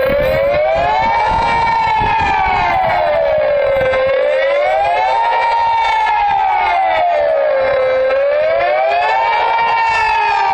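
Civil-defence siren at close range sounding the Swiss general-alarm signal as a test: a loud wailing tone that rises and falls smoothly and steadily, about one full rise and fall every four seconds.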